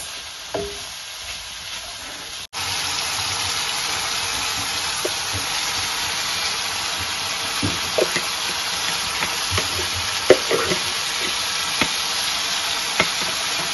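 Food sizzling in a hot frying pan: a quieter sizzle of chicken and mushrooms, then, after a short break about two and a half seconds in, a louder steady sizzle as sliced vegetables are tipped in and stirred. A spatula clicks and scrapes against the pan now and then.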